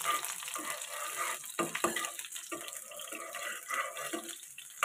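Garlic cloves and dried red chillies sizzling in hot oil in a nonstick frying pan, with a steady hiss and scattered knocks and scrapes from the spatula as they are stirred.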